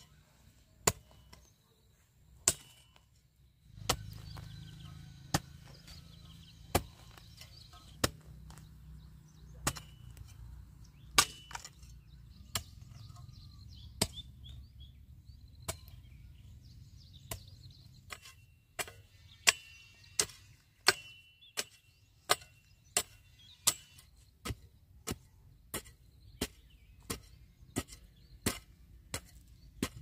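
A series of sharp chopping strikes, a blade cutting into something, about one every second and a half at first, then quicker at about two a second in the second half.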